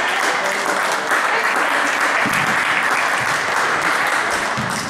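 Spectators clapping, a dense steady patter of many hands, with voices mixed in.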